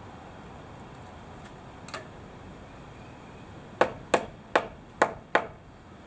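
Five sharp knocks on wood framing in quick succession, about three a second, starting a little past halfway, like hammer blows; a faint single click comes about two seconds in.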